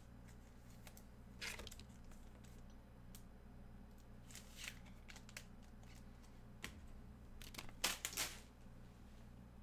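Faint rustling and scraping of trading cards and their packaging being handled, in a few brief bursts, with the loudest near the end, over a steady low hum.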